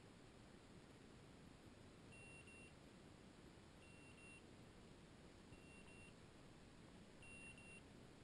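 Hunting dog's beeper collar sounding faint, high double beeps, about one every second and a half, starting about two seconds in.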